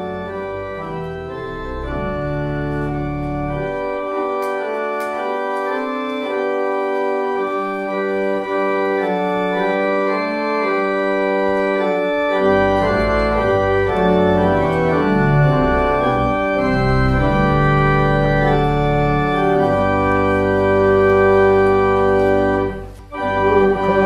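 Organ music: slow, held chords with a moving upper line. The deep bass notes drop out about four seconds in and return about twelve seconds in. The sound breaks off briefly near the end.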